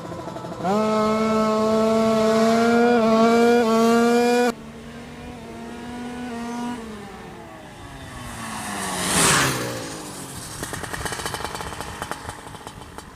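Kawasaki Ninja drag-bike engine revved hard under test tuning: it jumps to high revs less than a second in and holds there, climbing slightly, for about four seconds, then the throttle is shut and the revs fall away. A second, shorter rev rises and drops around the middle, and the engine settles to rough, uneven low running.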